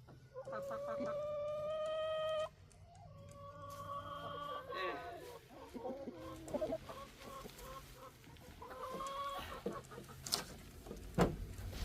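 Chickens calling: a long, level call of about two seconds, then a shorter one, and a third some seconds later. A few sharp clicks come near the end.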